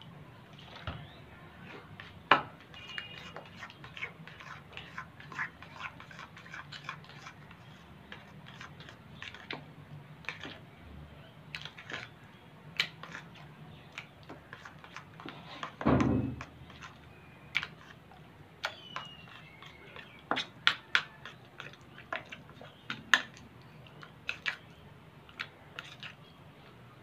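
Metal spoon stirring thick white glue in a small ceramic dish: irregular clicks and taps of the spoon against the dish, with one louder low thump about 16 seconds in.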